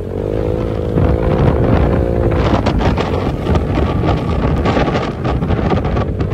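Wind rushing and buffeting over the microphone of a Honda PCX 150 scooter riding along a road. A steady engine drone is heard under it for the first two and a half seconds, then is lost in the wind.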